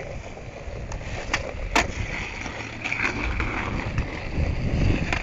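Skateboard wheels rolling over rough asphalt, a steady low rumble, with a few sharp clacks along the way.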